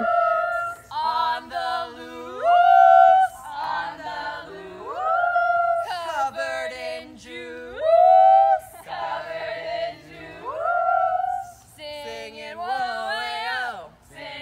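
A group of young men and women singing a call-and-response camp song unaccompanied, with repeated rising "whoa" glides onto long held notes.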